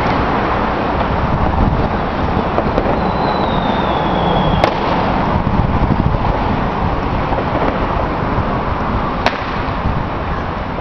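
Distant fireworks: two sharp cracks, about four and a half seconds apart, and a faint falling whistle just before the first. All of it sits under a loud, steady rushing background noise.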